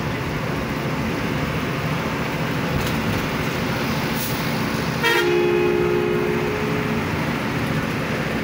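A moving bus's engine and road noise run steadily. About five seconds in, a horn sounds one two-tone blast that lasts about two seconds.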